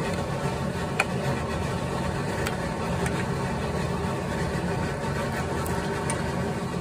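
A ceramic spoon stirring chunks of white radish in a pot of soup, clicking against the enamel pot a few times, the sharpest about a second in, over a steady low hum.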